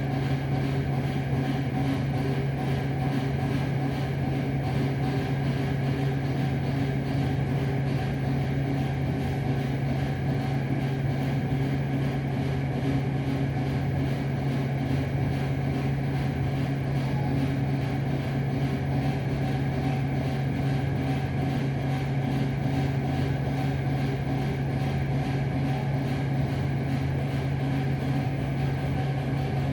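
A steady low mechanical hum at even loudness, without clear bangs or knocks standing out.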